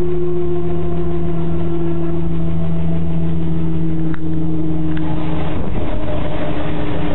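Robinson R22 helicopter's piston engine and rotor running, heard from the cockpit: a steady loud drone whose pitch sinks slowly. A single click comes about four seconds in, and the tone changes at about five and a half seconds.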